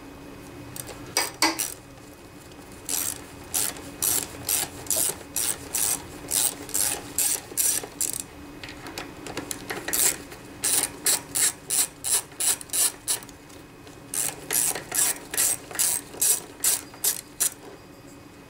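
Socket ratchet clicking in quick runs of strokes, about three clicks a second, in several bursts with short pauses between, as the carburetor's mounting nuts are run off.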